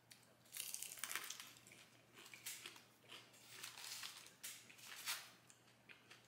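Faint crunching of a crispy bone-in fried chicken wing being bitten and chewed, in several short bursts.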